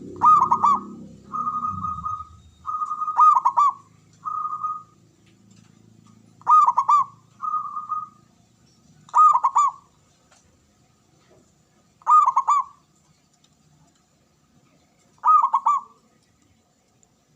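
Zebra dove (perkutut) cooing: repeated rippling coo phrases, each under a second long, mixed with a few plainer held coos in the first half. The calls then slow to single phrases about every three seconds.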